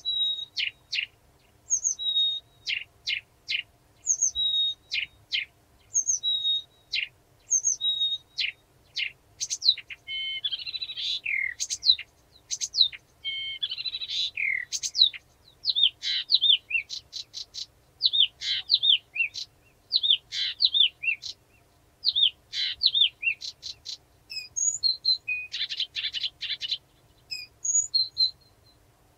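Blyth's reed warbler singing: a short phrase with a high falling note repeated several times over, then a faster, more varied run of chattering and whistled notes, with a buzzy rattle near the end.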